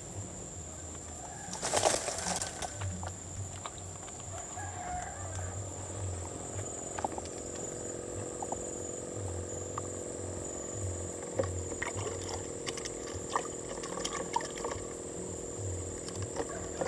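Handling noise from fishing gear and the bank: rustling and scattered clicks and knocks, loudest in a short burst about two seconds in, over a steady high-pitched insect drone. About six seconds in, a steady low hum joins and carries on.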